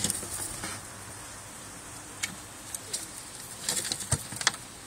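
Small scattered clicks and rustles of rabbits moving about in straw and wood shavings in a wooden hutch, then a quick cluster of knocks about four seconds in as the adult rabbit hops onto the wooden ramp.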